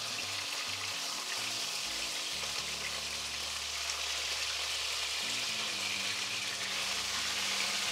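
Chicken pieces sizzling steadily in hot oil in a frying pan as they are seared over high heat.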